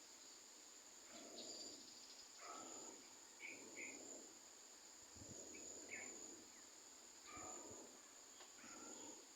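Faint outdoor ambience: a steady high-pitched insect drone, with soft dull sounds about once every second and a few short high chirps.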